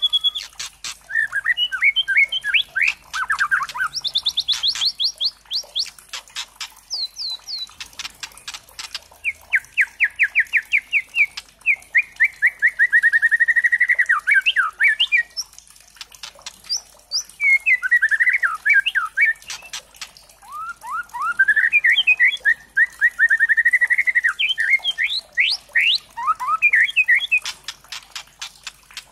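A young white-rumped shama (a spotted-plumage "trotol" murai batu) singing a loud, fast and varied song. It runs through rapid strings of repeated notes, trills and sweeping whistles, mixed with sharp ticking notes.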